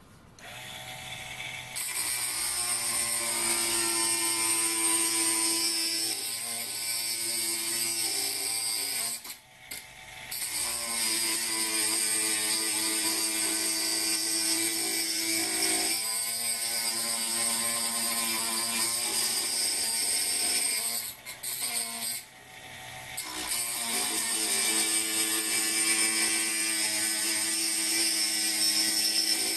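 A small 220 V 72 W geared micro rotary tool runs an abrasive cut-off disc through a 1/4-inch Whitworth steel bolt: a steady whine from the motor and gear drive under a high grinding hiss. The sound drops out twice, about ten seconds in and again past twenty seconds, and each time winds back up.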